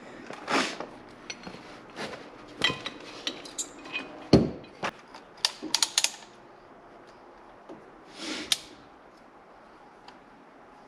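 Metal hand tools clinking and clattering as a tool is set in place on a brake caliper, with a sharp knock about four seconds in and a quick run of clicks about six seconds in.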